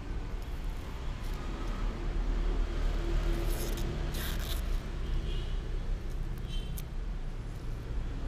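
Steady low background rumble, with a few short crisp rustles around the middle.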